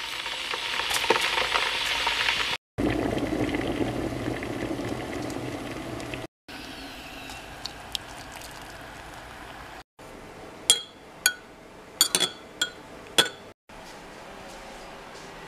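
A kettle's hot water hissing and pouring into a ceramic mug over the first six seconds, in short separate shots. Later a teaspoon clinks against the mug about six times in quick, ringing strokes.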